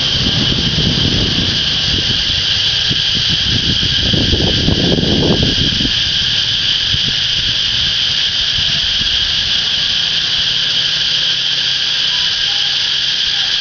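Cicadas singing in a loud, steady, continuous high-pitched drone, with a low rumbling noise underneath during roughly the first six seconds.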